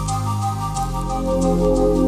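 Soft new-age background music: sustained synth pad chords with light chime-like sparkles above.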